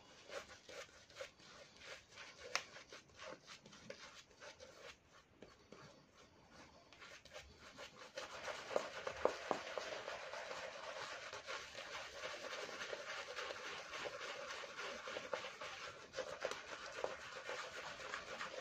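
Shaving brush swirling thick soap lather over a stubbled face, a soft continuous wet brushing and scrubbing. It turns louder and denser from about eight seconds in.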